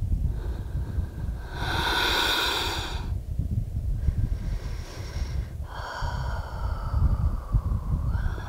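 A woman's deep, audible breathing during a yoga forward fold: one loud breath about two seconds in, then two longer breaths with a faint whistle to them. Wind rumbles on the microphone underneath.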